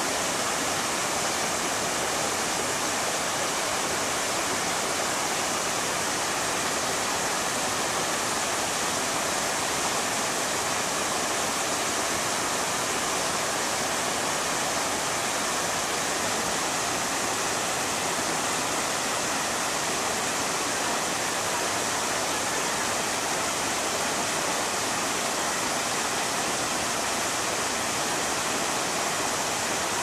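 The Dzhur-Dzhur waterfall pouring onto rocks: a steady, unbroken rush of falling water.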